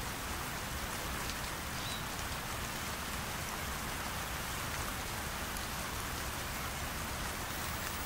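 Steady, even hiss of light rain falling.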